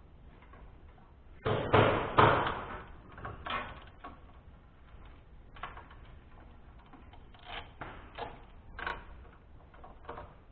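Hand tools and metal parts clanking and knocking during work on a Kohler K241 engine's cylinder head bolts: a few loud knocks about one and a half to two and a half seconds in, then scattered lighter clicks.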